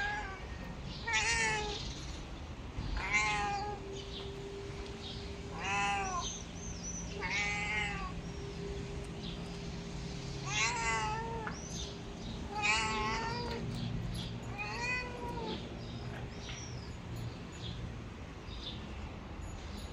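Young orange-and-white cat meowing for attention: about eight drawn-out meows, one every two to three seconds, stopping after about fifteen seconds.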